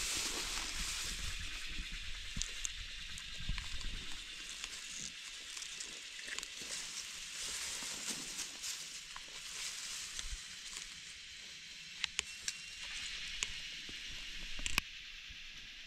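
Crackling rustles of grass, leaves and soil as gloved hands dig up and pick wild mushrooms, over a steady high hiss. There are a few sharp clicks near the end.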